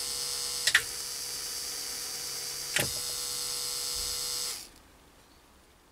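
Small worm-geared DC gearmotor of a home-made lathe compound-slide power drive running free with a steady whine. Two sharp clicks come about a second and about three seconds in, and the motor stops about four and a half seconds in.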